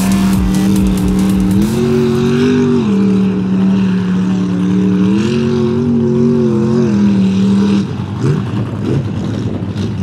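Big-block Ford V8 of a lifted OBS Ford pickup running hard through a mud pit, held at high revs with its pitch stepping up twice and back down. Near the end it revs up and down in quick, uneven sweeps.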